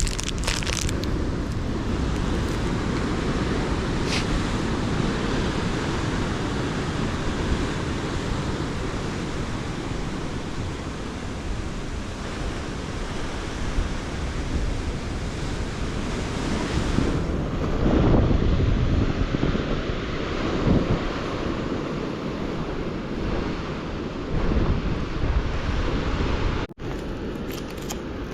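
Ocean surf rushing and breaking, with wind buffeting the microphone. The surge swells several times, loudest about two-thirds of the way in, and the sound drops out for an instant near the end.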